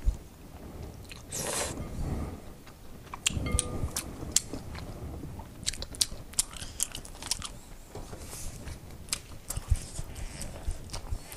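Close-up eating sounds: a noodle slurp of udon about a second and a half in, then chewing with many short wet mouth clicks and smacks.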